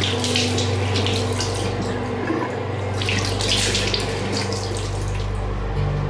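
Water from a bathroom tap running into a sink and splashing as hands wash under it. The splashing is strongest near the start and again about three seconds in.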